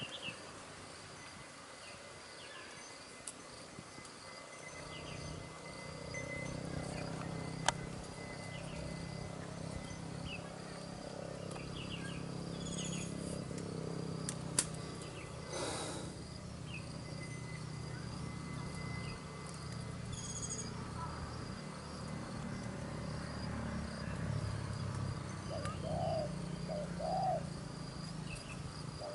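Insects and small birds chirping over a steady low hum that sets in about five seconds in, with two sharp clicks along the way. Near the end a spotted dove gives two short coos.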